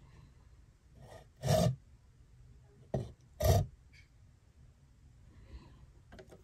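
Lid of a cooking pot lifted off and scraped against the pot's rim: two short scrapes about two seconds apart, with a sharp click just before the second.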